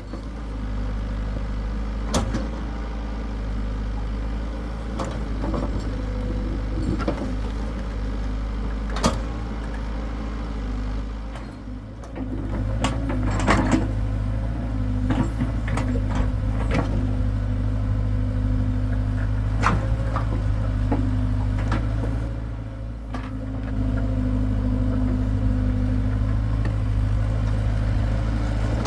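Hitachi excavator's diesel engine running steadily, with scattered sharp knocks from the machine at work. The engine gets louder about twelve seconds in, dips briefly, and picks up again near the end.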